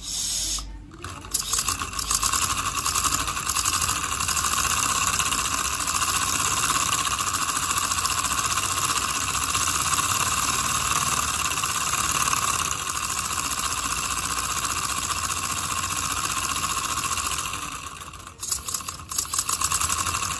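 Homemade V-twin oscillating-cylinder steam engine running fast: a steady rapid hissing chuff from its ports, with the rattle of its rods and crank. It falters briefly near the end, then picks up again unevenly.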